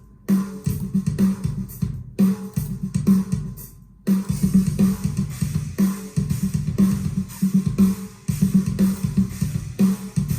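Programmed djent-style metal riff: staccato low guitar chugs locked with kick drum hits in a stop-start rhythm. It breaks off briefly about two seconds in and again just before four seconds, then plays without a break.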